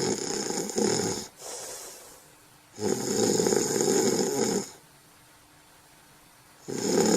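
A sleeper snoring: long snores of about two seconds each, roughly four seconds apart, with a shorter, quieter breath after the first.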